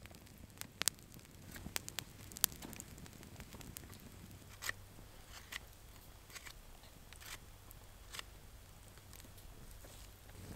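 Wood campfire crackling, with sharp irregular snaps and pops over a faint steady background.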